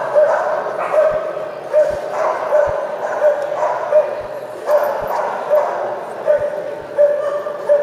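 A dog yapping persistently at a steady pitch, about two short barks a second, over the murmur of background chatter.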